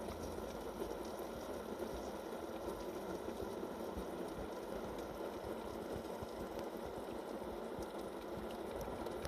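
Nissan Leaf's heat-pump climate control heating the cabin, its blower fan running as a steady rushing noise.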